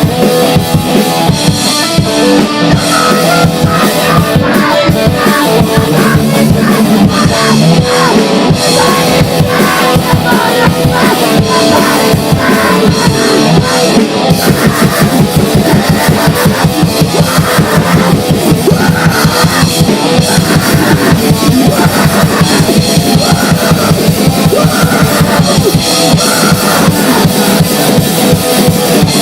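Grindcore/noise band playing: distorted guitars over very fast, relentless drumming with rapid bass drum and snare hits, the drumming tightening into an even blast-beat pattern about halfway through.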